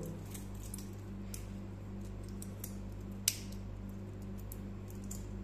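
Small clicks and taps of a metal wristwatch and its strap being handled, with one sharp click about three seconds in, over a steady low hum.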